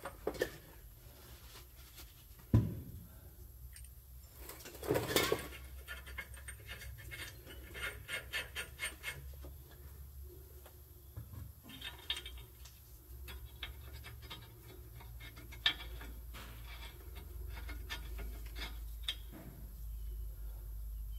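Small metal parts clinking and scraping as U-bolt nuts are fitted by hand onto a Safe-T-Plus steering stabilizer bracket at the tie rod. There is a sharp knock about two and a half seconds in and a short run of quick ticks around eight seconds, and a low hum grows louder near the end.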